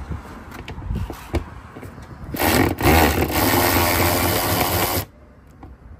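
Cordless power driver running in one burst of about two and a half seconds, starting about midway and cutting off abruptly, with a brief dip just after it starts. Before it come light clicks of plastic bumper trim being handled.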